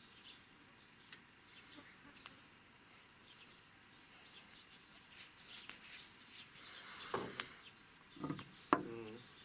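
Quiet riverside ambience with faint, scattered bird chirps.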